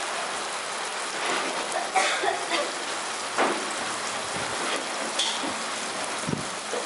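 Chili, shallot and garlic paste frying in hot vegetable oil in a pot: a steady sizzle with a few sharp crackles of spitting oil.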